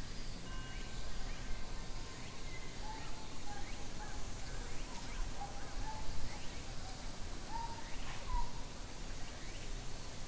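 Outdoor ambience: a steady low rumble with faint, short bird chirps scattered through it.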